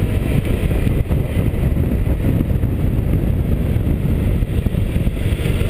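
Honda SH300i scooter under way: its single-cylinder engine running with a steady low rumble of wind on the microphone.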